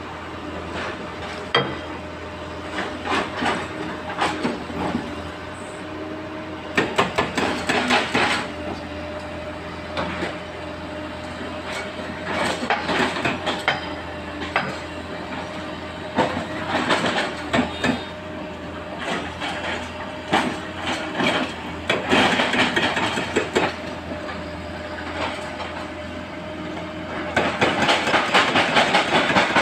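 Heavy excavator engines running steadily, with repeated bursts of metallic clanking and rattling every few seconds as the machines work loading sand into a dump truck; the longest burst comes near the end.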